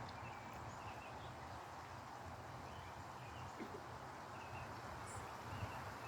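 Faint outdoor background hiss with scattered short, soft bird chirps.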